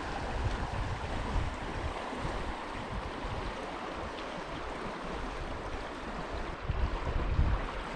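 Trout stream water flowing steadily, with wind gusting on the microphone in low rumbles that grow stronger near the end.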